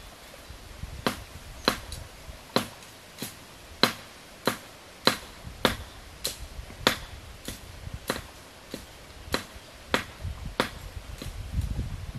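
A machete chopping into a bamboo stem: about sixteen sharp, even strokes, roughly one every 0.6 seconds, stopping near the end, where a low rustle follows.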